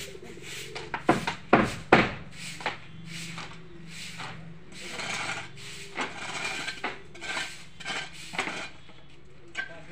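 A few sharp wooden knocks in the first two seconds, then rough scraping strokes repeated about twice a second, fading out near the end.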